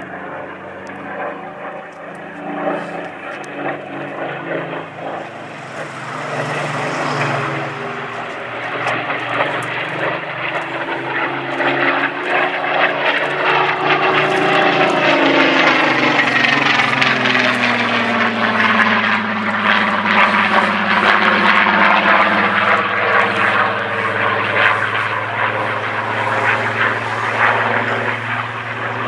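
Spitfire's Rolls-Royce Griffon V12 piston engine running hard in a display flypast. It grows louder and drops in pitch as the aircraft passes close by about halfway through.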